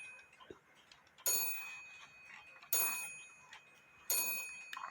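Cuckoo clock movement ticking three times, about one and a half seconds apart. Each tick is a sharp click with a brief metallic ring.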